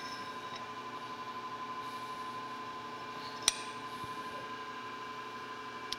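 A single sharp metal clink about halfway through as a gear cutter is slid onto a freshly turned steel arbor for a test fit. Under it runs a steady machine hum with a fixed mid-pitched tone.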